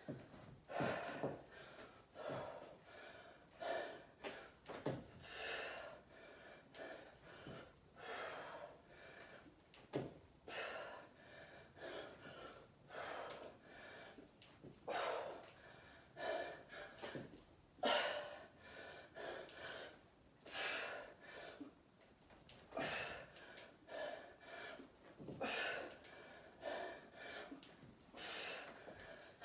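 A woman breathing hard from exertion, with loud gasping breaths in and out about once a second.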